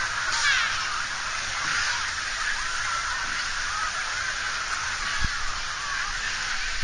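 Busy wave pool heard from right at the water's surface, muffled as through a waterproof camera housing: a steady wash of water with many faint, overlapping distant shouts and cries from swimmers. A light knock about five seconds in.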